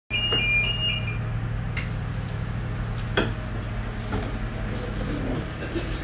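Passenger train door opening after its open button is pressed: two short two-tone warning beeps, then a hiss coming in about two seconds in and a single clunk about a second later, over a steady low hum.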